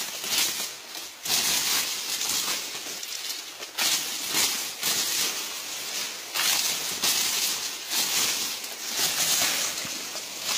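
Dry sugarcane leaves being scraped and torn off standing cane stalks with a homemade blunt sheet-metal stripping tool on a handle: repeated rustling, scraping strokes, about one to two a second, with short pauses.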